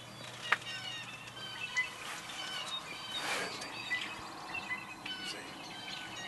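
Birds calling in many short chirps and whistles. A sharp click comes about half a second in, and a brief rustling burst a little past three seconds.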